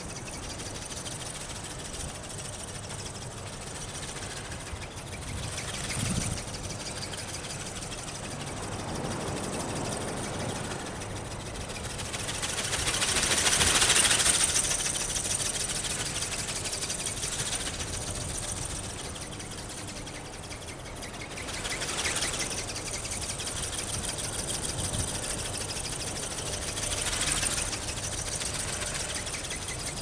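NightFury 23iV flapping-wing ornithopter in flight: its brushless motor and gear drive whir with a steady mechanical buzz as the wings beat. The sound swells as it passes close, loudest about halfway through, and again briefly twice later.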